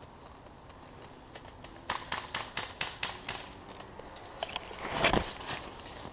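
Footsteps crunching through dry brush and leaves: irregular sharp snaps and crackles for about a second and a half, then a louder rustling crunch about five seconds in.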